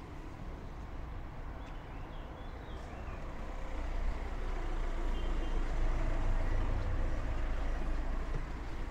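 A motor vehicle's engine rumbling low as it passes in the street, growing louder about halfway through and staying strong before easing slightly.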